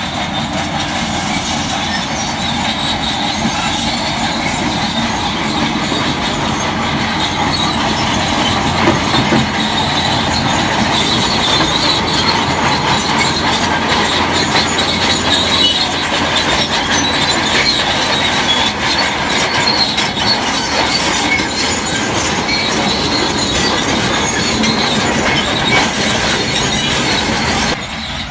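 Crawler bulldozer working, a steady high metallic squeal and dense clanking from its steel tracks over the running engine.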